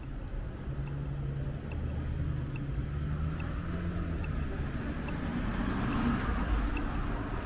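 Street traffic: a motor vehicle's engine running with a steady low hum, and traffic noise swelling from about three seconds in. A faint high tick repeats about once a second.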